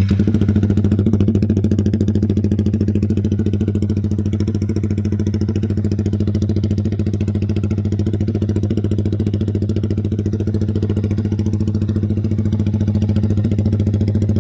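Yamaha R15 V3's 155 cc single-cylinder engine idling steadily through an original Kawahara Racing aftermarket exhaust. It catches right at the start and then runs at an even idle.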